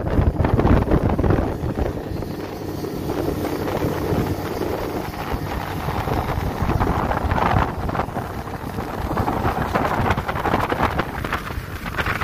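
Motorboat under way, its engine running steadily beneath heavy wind buffeting on the microphone.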